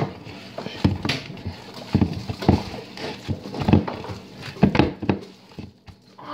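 Hands kneading and squeezing a raw ground-meat meatloaf mixture in a wooden bowl: irregular squelches, about two a second, that die away near the end.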